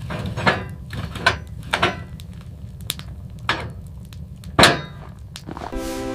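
A series of sharp knocks or blows, about eight at uneven spacing and the loudest about four and a half seconds in, over a low steady rumble. Music comes in near the end.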